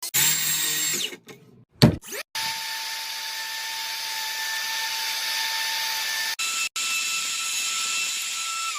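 Electric circular saw motor running with a steady high whine, in two stretches split by a short break, the second higher in pitch; near the end the pitch falls as the blade winds down. A short burst of noise and a single knock come in the first two seconds.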